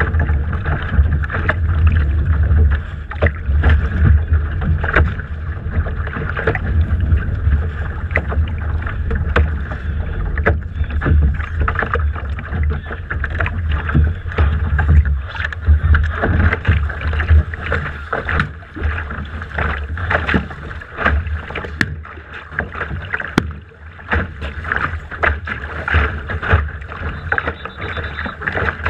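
Wind buffeting the microphone, with water splashing and slapping against the hull of a Laser sailing dinghy on choppy water, punctuated by frequent short knocks.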